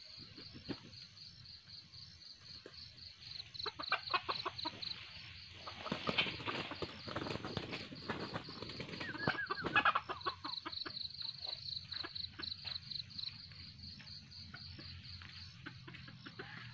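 Red junglefowl rooster flapping its wings and scuffling on dry ground for several seconds from about three seconds in, with a short call near the end of the flurry. Crickets chirp in a rapid steady pulse throughout.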